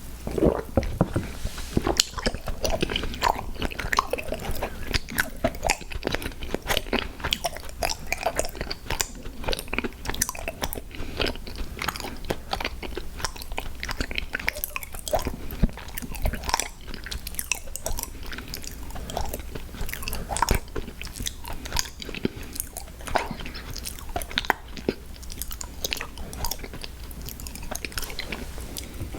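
Close-up mouth sounds of a person chewing and biting into sweets, with many quick wet clicks and crunches.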